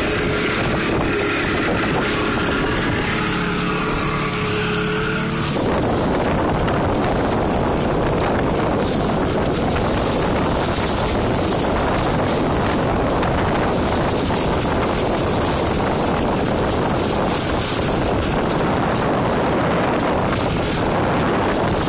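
Small motorboat under way through choppy water: for the first five seconds or so the engine's steady drone is clear, then a constant rush of wind buffeting the microphone, with spray off the hull, covers it to the end.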